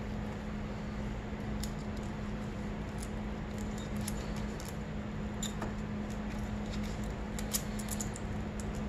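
Scattered light clicks of a gloved hand handling a valve bucket and shim in the cylinder head of a 2006 Honda CRF250R, during a valve-clearance shim change, over a steady low hum.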